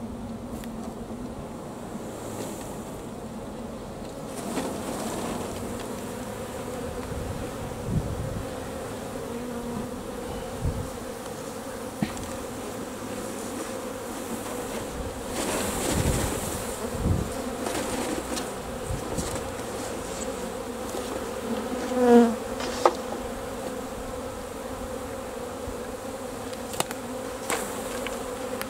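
A honey bee swarm buzzing: a steady hum of many bees, broken by a few knocks and bumps. About three-quarters of the way through, one louder buzz passes close, the loudest sound here.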